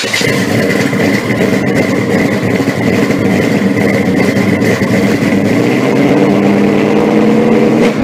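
A car engine running loudly and steadily, with a thin steady high whine over it. It cuts off suddenly just after the end.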